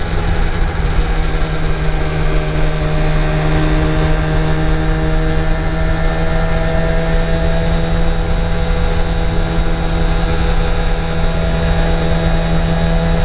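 Yamaha TDR250's two-stroke parallel-twin engine running steadily under way, its note rising gently as it pulls, over a low wind rumble on the microphone.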